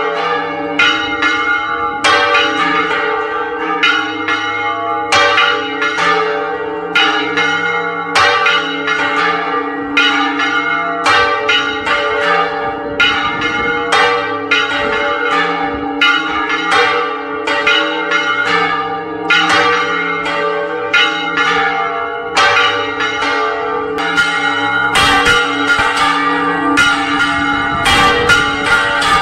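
Several church bells swung full circle on counterweighted headstocks in a Spanish-style volteo, each turn striking the bell. The clangs come thick and uneven, roughly two a second, over a steady hum of ringing tones.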